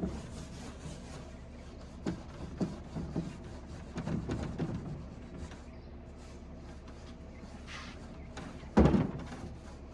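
Scattered light knocks and scrapes of hand work on a wooden dresser, with one louder knock near the end.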